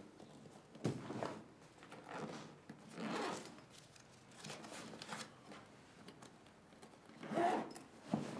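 Bag being handled: a series of short, irregular rustling strokes, the loudest near the end.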